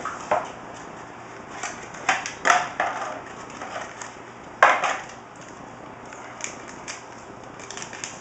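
Handling noise of computer parts and packaging: a few hard knocks and scrapes against the case and cardboard box, the loudest about four and a half seconds in, then light crinkling clicks as a hard drive in its anti-static bag is handled near the end.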